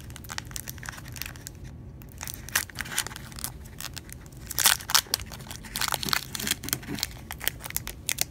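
Foil-lined wrapper of a vintage Pokémon Jungle booster pack crinkling and crackling as its crimped top seal is peeled apart by hand. The crackles come in an irregular run, briefly stopping just before two seconds in, with the loudest cluster about halfway through.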